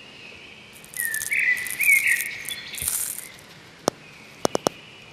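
Birds chirping and insects trilling in a spring-meadow sound effect, with whistled notes that glide up, loudest in the middle. A few sharp clicks follow near the end.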